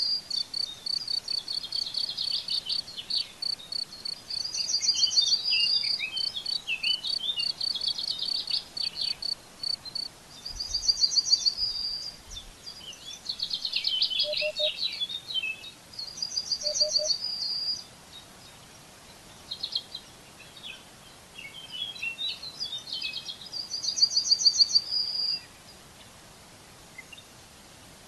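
Songbirds singing: one bird repeats a short, bright, high phrase about every six seconds, with chattering twitters in between. A fast, even series of high ticks runs through the first ten seconds. The birdsong stops about 25 seconds in.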